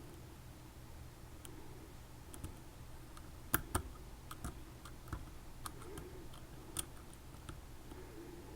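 Faint, scattered clicks and taps of a lock pick working the pin-in-pin stacks inside a Mul-T-Lock Junior lock, the loudest pair of clicks about three and a half seconds in, over a faint low hum.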